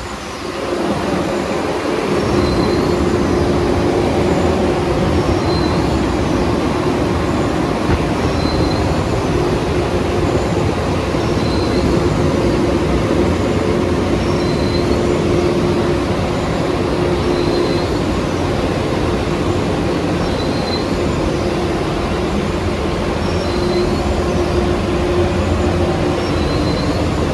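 Ryko R7B car wash machine running: its noise builds over the first two seconds, then holds steady with a hum. A short high chirp repeats about every three seconds.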